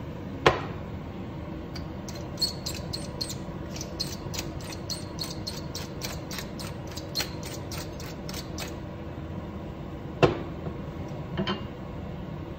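Wooden pepper mill being twisted to grind pepper: a quick run of crunching clicks for about six seconds. A sharp knock comes about half a second in, and another near ten seconds as the mill is set down on the steel benchtop. A steady low background rush runs underneath.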